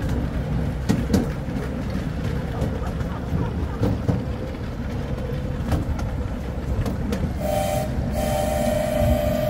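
Miniature ride-on train rumbling along its track with scattered clicks from the wheels and rails. Near the end its two-note whistle sounds: a short blast, then a longer one.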